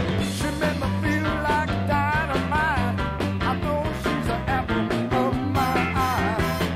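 R&B band music: a steady bass line and drums under a gliding melody line.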